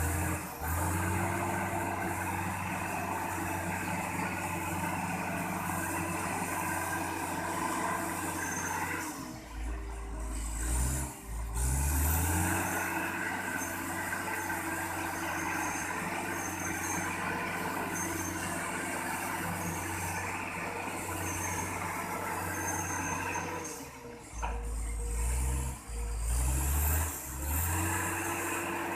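Heavy diesel engine of a bulldozer running under load while moving a drill rig. It is steady for long stretches, and twice, about ten seconds in and again near the end, it drops into a deep rumble and then revs back up. Faint short high beeps repeat about once a second through most of it.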